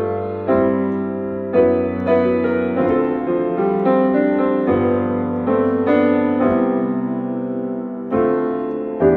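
Grand piano being played: a slow run of full chords, each struck and left to ring and fade before the next.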